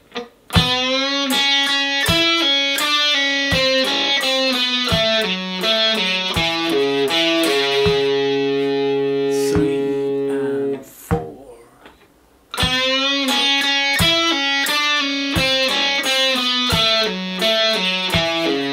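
Electric guitar with a distorted tone playing a quick run of single notes in F-sharp minor pentatonic, mixing picked notes with pull-offs and ending on a held note. After a pause of about a second and a half, the run starts over. A steady click keeps time about every 0.7 seconds.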